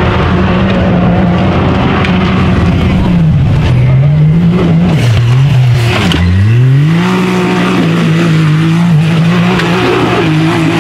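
Race UTV engine at full throttle on a steep dirt hill climb, revving high. Its pitch dips and climbs back several times in the middle as the tyres spin and grab on the slope, then holds high again.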